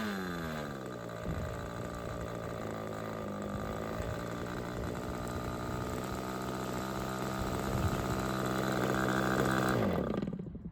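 OS 46AX two-stroke glow model engine being run in after a rebuild. It drops from high revs to a low steady idle, then slows and stops about ten seconds in.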